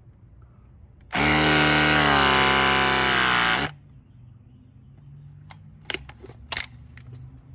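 Battery-powered refrigerant press tool crimping a 90-degree press fitting onto copper line. The motor whines steadily for about two and a half seconds, its pitch dipping slightly under load, then stops abruptly. Two sharp clicks follow.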